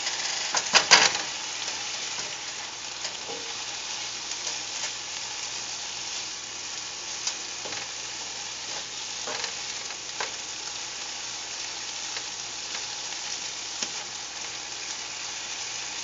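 Asparagus sizzling steadily in a hot skillet as its cooking water nearly boils away, with a plastic spatula scraping and knocking against the pan as the spears are stirred; the loudest knocks come about a second in.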